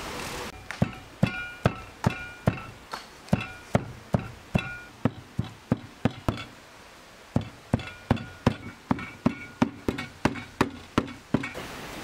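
A hatchet chopping chunks of fat on a wooden stump block: steady repeated chops, about two and a half a second, many with a brief metallic ring from the blade. There is a pause of about a second just past the middle, then the chopping resumes.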